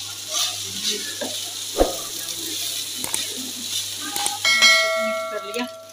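A wooden spatula stirring and tossing rice with scrambled egg and vegetables in a hot oiled wok, with a light sizzle and a few scrapes against the pan. A bell-like chime rings out about four and a half seconds in and lingers.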